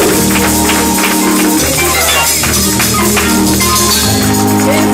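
Gospel praise band music: held chords played under a steady tambourine beat.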